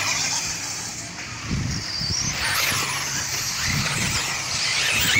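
Electric 4WD off-road RC buggies racing, their electric motors whining and rising and falling in pitch as they speed up and slow down.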